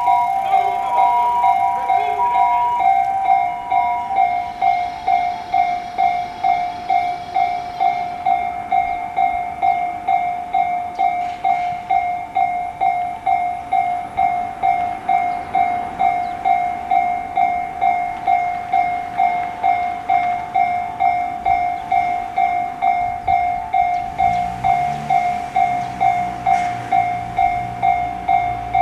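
Japanese level-crossing warning bell ringing, a two-tone electronic clang repeating at an even, quick rhythm. Near the end a lower running sound joins, typical of a train approaching the crossing.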